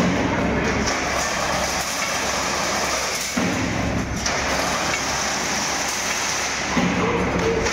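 Automatic chain-link fencing machine running: a steady mechanical noise, with a heavier, lower stretch lasting about a second that comes back about every three and a half seconds as its working cycle repeats.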